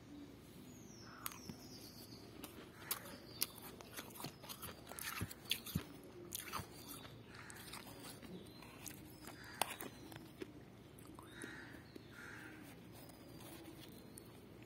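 Freezer frost crunching: a run of sharp, irregular crunches and crackles, thickest in the first half and thinning out toward the end.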